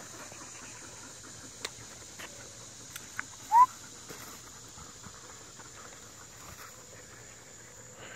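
Steady high chirring of insects such as crickets, with a few faint ticks. About three and a half seconds in, one short rising squeak stands out as the loudest sound.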